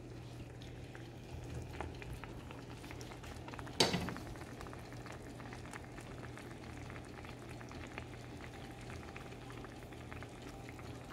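Grated raw mango and sugar simmering in a pan, bubbling steadily with small pops. A single sharp knock sounds about four seconds in.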